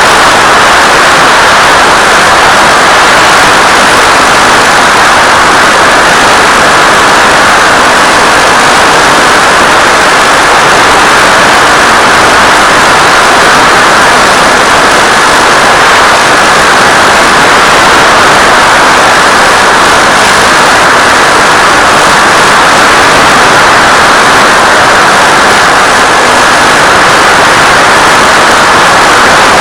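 Steady, very loud hiss of radio static, even and unchanging, with no motor tone in it: the empty audio channel of an analog 1.3 GHz FPV video receiver.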